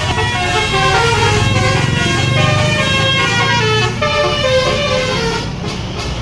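Bus 'telolet' horn playing a quick melody of short notes that step up and down in pitch, over the steady low running of the bus's engine.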